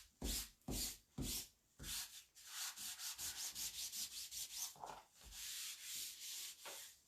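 A wipe rubbed back and forth over a silkscreen transfer to clean off chalk paste, in repeated short strokes that quicken to about five a second in the middle.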